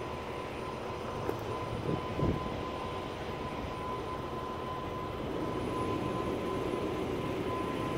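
Steady engine rumble of vehicles with a thin steady whine, growing a little louder about two-thirds of the way through as a pickup truck draws near.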